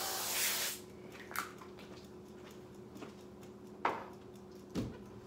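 Avocado oil spray hissing onto parchment paper, cutting off just under a second in. After that a few faint, short knocks.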